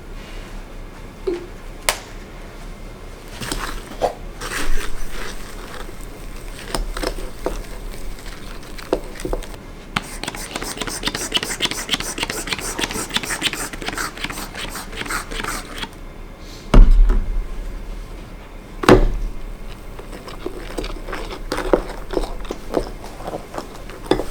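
Slime being handled for ASMR: squished and poked by hand, giving runs of small wet clicks and crackles, thickest in the middle stretch, with two louder thumps in the second half.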